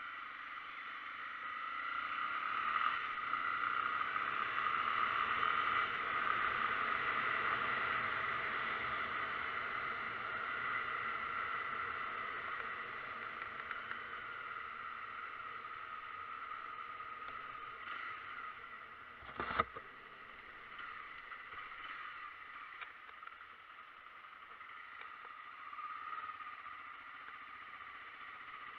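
Vehicle driving on a rain-wet road: steady engine and tyre noise with a wet hiss, and one sharp knock about two-thirds of the way through.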